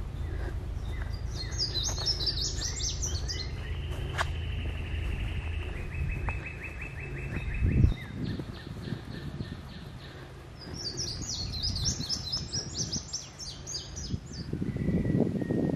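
Songbirds singing: two runs of quick high notes several seconds apart, with a held whistle and a rapid trill from another bird between them. Under the birdsong there is a low rumble through the first half, ending in a thump about eight seconds in.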